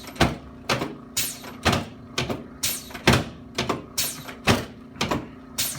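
Regular knocking, about two knocks a second, over a low steady hum, from a percussive chiropractic treatment given to a patient lying on the adjusting table.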